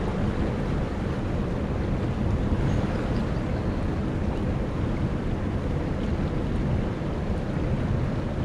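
Steady rushing of a flowing creek, with a low rumble of wind on the microphone.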